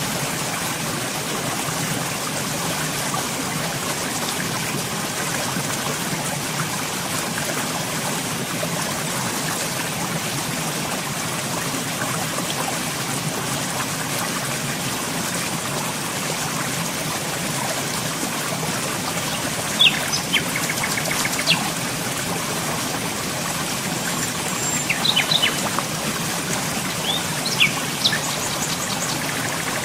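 Steady flowing water, with birds chirping briefly several times in the latter half.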